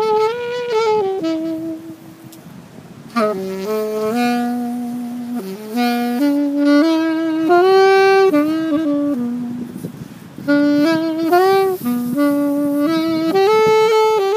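Solo saxophone playing a slow melody of held notes, with small slides between pitches and vibrato on the longer notes. It softens about two seconds in and again shortly before ten seconds, then comes back in strongly.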